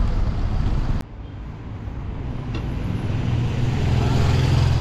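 City street traffic noise: a steady rumble of road vehicles that drops off suddenly about a second in, then the low hum of a vehicle engine growing louder as it draws near.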